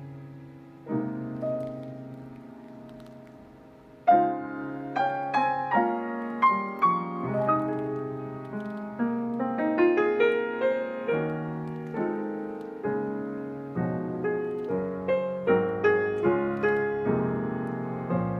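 Fazioli grand piano played solo. Held chords fade slowly for the first few seconds, then about four seconds in a loud chord opens a flowing passage of struck notes, several a second, over sustained chords.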